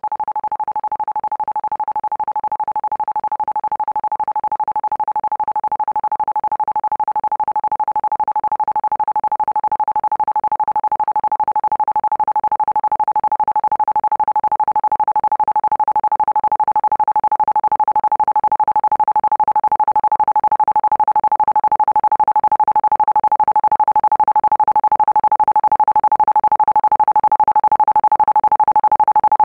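Isochronic entrainment tone: a single steady pure tone pulsed on and off many times a second, growing gradually louder.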